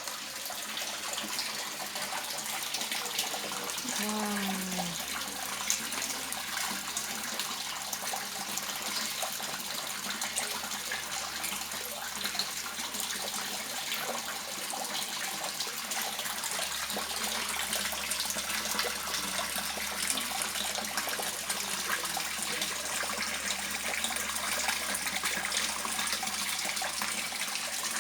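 Water splashing and trickling steadily into a koi pond.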